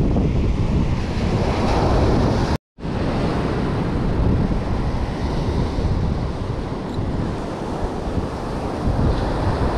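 Ocean surf breaking and washing up a sand beach, with wind buffeting the microphone. A brief silent gap cuts in about two and a half seconds in.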